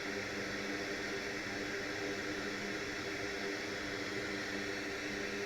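Steady rushing hiss of moving air with a faint low hum underneath, from a fan-driven bench tool, running evenly without change.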